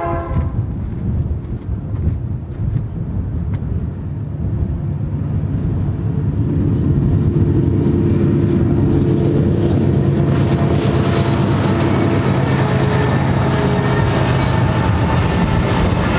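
Chord horn of a BNSF freight locomotive cuts off about half a second in. The diesel engines of the two lead GE locomotives then grow louder as they pass close by, and the rolling rumble and wheel clatter of intermodal cars carrying trailers follows.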